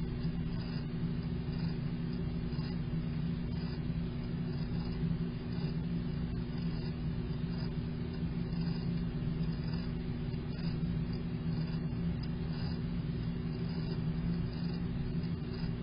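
Steady low droning rumble with a few held low tones, from a stock ambient soundtrack.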